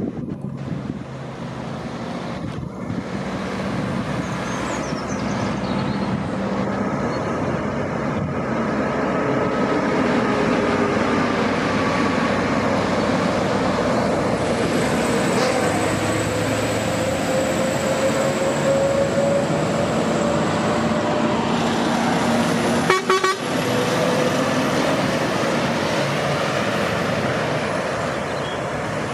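Heavy diesel engines of a convoy, a Liebherr LTM 1750-9.1 nine-axle mobile crane and heavy-haul tractor units, running under load as they pass. The sound grows louder over the first ten seconds, and the engine pitch slowly rises and falls. A brief loud burst comes about 23 seconds in.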